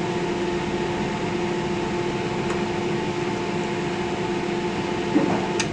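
A steady machine hum with a droning tone, like a motor running, broken by a sharp click near the end.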